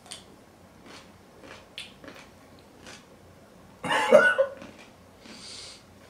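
A man chewing a hot-sauce-covered pickle, with a few faint chewing clicks, then about four seconds in a loud cough-like gasp, followed by a short hissing breath: a reaction to the burn of Da Bomb Beyond Insanity hot sauce.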